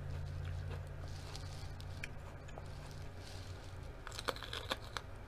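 Crisp crunching of teeth biting into a raw mini sweet pepper about four seconds in, a quick run of sharp snaps, over a low steady background hum.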